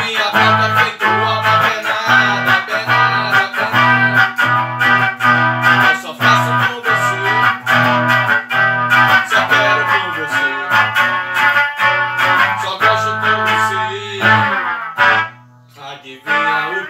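Electric guitar played through an amplifier, a continuous instrumental passage over an evenly pulsing low note. The playing drops away for about a second near the end, then picks up again.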